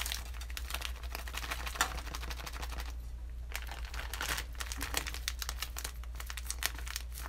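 Thin plastic bag of sugar crinkling and rustling in the hands as sugar is spooned out of it: a dense run of small crackles, with a brief lull about three seconds in.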